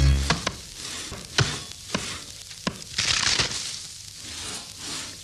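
Wood-chopping sound effects: sharp, irregular knocks every half second to a second, with a short hiss about three seconds in.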